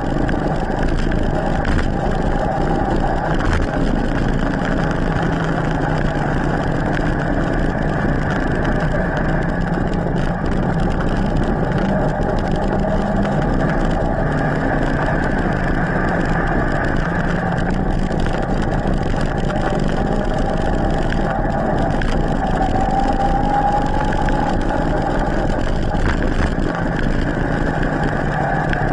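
Electric drive motor of a Bergamont e-MTB whining under full Turbo-mode assist, its pitch wavering slightly, over a steady rush of wind and tyre noise on asphalt.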